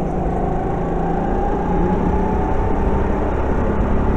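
Go-kart engine running under throttle during a race, heard from on board. A steady engine note rises slightly over a constant dense rush of noise.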